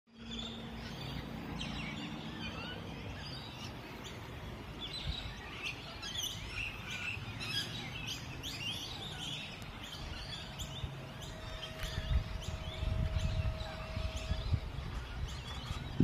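Many birds chirping and calling over one another in a dense chorus of short, high notes, with a low rumble growing louder in the last few seconds.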